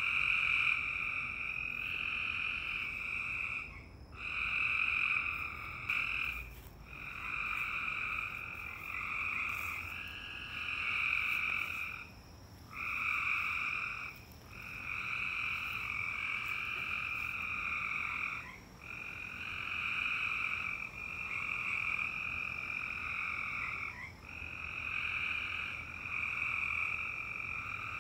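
A steady high-pitched trilling in two pitch bands, in long bouts broken by brief gaps every couple of seconds.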